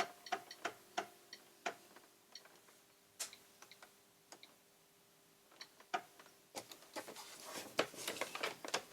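Scattered light clicks and taps from handling a sewing machine set up to stitch around a paper card, with a faint steady hum through the middle. The clicks come irregularly and crowd together near the end.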